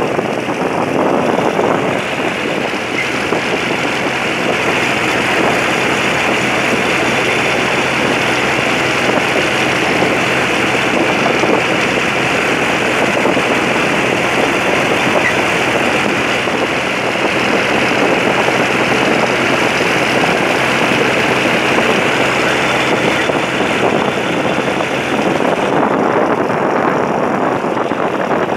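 Tractor engine running steadily while the tractor is driven along: a low steady hum under a loud, even rushing noise.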